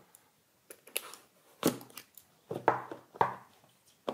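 A utility knife slitting the seals of a sealed cardboard smartphone box, with the box handled against the table: several short scrapes and knocks.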